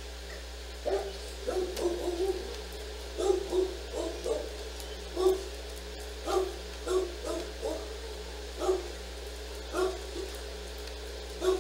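A dog barking in short, sharp barks: a quick flurry about a second in, then single barks roughly once a second.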